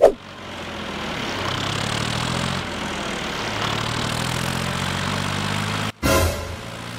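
Tractor engine running steadily at idle. There is a short swish at the start, and about six seconds in a brief dropout and another short swish before the engine sound resumes.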